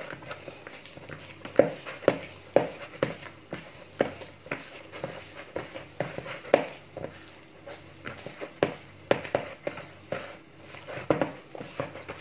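Hands kneading soft, sticky yeast dough in a plastic bowl: irregular squelching slaps and knocks, about two a second.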